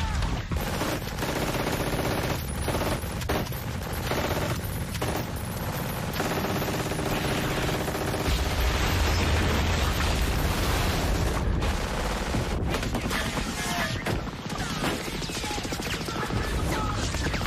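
War-film battle soundtrack: dense machine-gun and rifle fire mixed with explosions.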